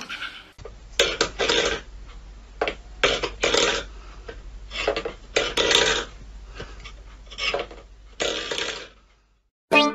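A cat pawing a stainless steel food bowl, scraping and rattling it over a wooden floor in a series of short, noisy bursts about half a second each.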